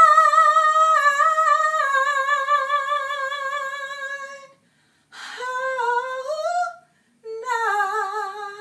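High, drawn-out sung notes with strong vibrato: one long held note that fades out about four and a half seconds in, then after a short break a note sliding upward and a wavering lower note near the end.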